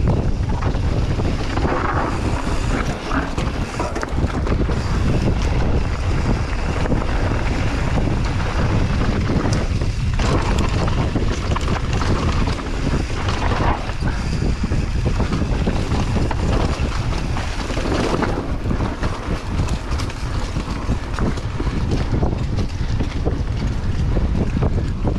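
Mountain bike riding fast down a dirt trail: steady wind rushing over the microphone with tyre roar, and frequent small clatters and knocks from the bike over rough ground.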